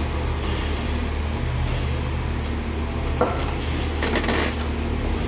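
Four-door Jeep Wrangler crawling slowly over trail boulders: the engine runs low and steady, with a sharp knock about three seconds in and brief scraping crunches as the tyres climb the rocks.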